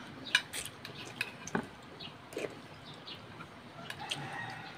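Metal spoons and forks clicking and scraping on ceramic plates and a glass baking dish while eating, with many short, irregular clicks.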